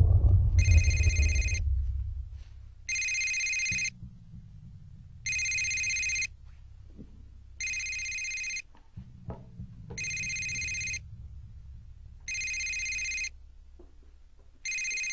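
Mobile phone ringing with a repeating electronic ring tone: seven rings of about a second each, roughly every two and a half seconds. A low rumble fades out over the first two seconds.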